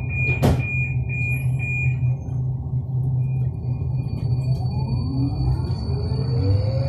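M4 metro train (Alstom Metropolis) pulling away from a station. A steady low rumble runs throughout, with a high broken beeping in the first two seconds and a sharp knock about half a second in. From about halfway, the traction motors' whine rises in pitch as the train accelerates.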